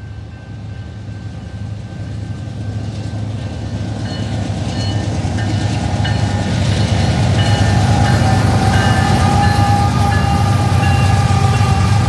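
Union Pacific diesel-electric freight locomotives approaching and passing close by. Their engine rumble grows steadily louder, with thin steady high tones over it from about four seconds in.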